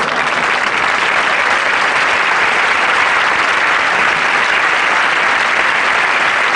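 Studio audience applauding steadily, a dense, even clapping that greets the punchline of a joke.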